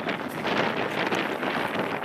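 Wind buffeting the camera microphone: a steady rushing noise that drowns out other sound and dies away just after two seconds.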